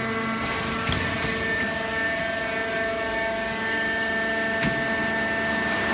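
Continuous horizontal cardboard baler running: a steady machine hum and whine with several held tones over a hiss, and a couple of short clicks.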